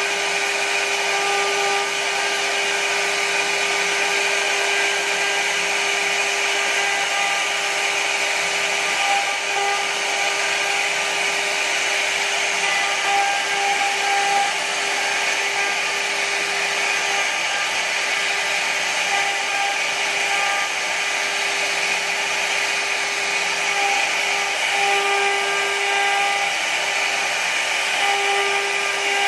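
CNC router spindle running steadily while its carving bit cuts a relief pattern into wood: a constant high whine over the hiss of the cut, with an upper overtone that comes and goes every few seconds as the bit moves through the carving.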